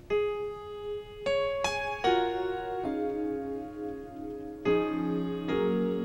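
Solo grand piano playing a slow, gentle passage: separate notes and chords struck at uneven intervals, each left to ring out, with a few higher notes about a second and a half in.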